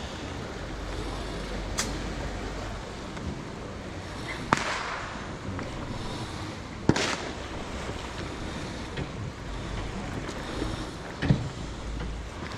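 Fireworks going off: four sharp bangs spread over several seconds, one of them trailing off for about a second, over steady wind and water noise.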